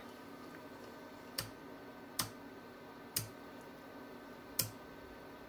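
Four sharp clicks, each about a second or so apart, from the controls of a small square-wave (PWM) generator board being pressed to step through its settings. Each click changes the output, here from an even square wave to narrow pulses.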